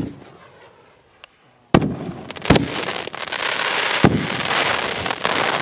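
Plasma Torch 1.4G canister-shell fireworks bursting. A sharp bang at the start, a pause, then two loud bursts a little under a second apart. After that comes a dense, sustained crackling with one more sharp crack partway through.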